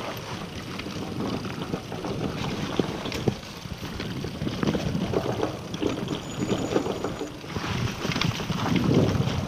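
Scott Genius LT 710 Plus mountain bike riding over a rough trail: tyre noise with frequent rattling clicks and knocks from the bike, louder near the end.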